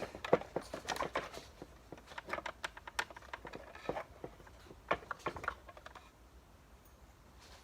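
Irregular clicks and light clatter of small hard parts and tools being handled at a workbench, dying away about six seconds in.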